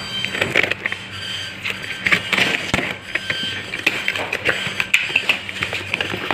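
Box cutter slicing through packing tape on a cardboard parcel and the cardboard flaps being pulled open: an irregular run of scraping, crackly tearing and small clicks.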